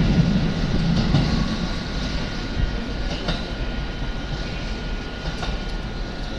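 JR 209 series commuter train running out of the platform. The rumble of its wheels on the rails fades as it draws away, with a few clicks of wheels over rail joints.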